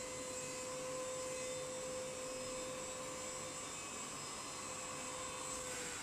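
UV Care v2.0 portable mattress vacuum cleaner running at its 8000 Pa suction setting while pressed onto a mattress: a steady motor hum with a high whine, the whine dropping away just before the end.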